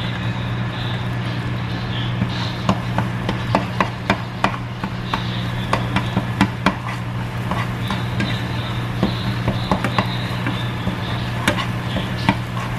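Plastic slotted spatula tapping and scraping against a frying pan as egg is chopped up and stirred, in quick, irregular clicks and knocks. A steady low hum runs underneath.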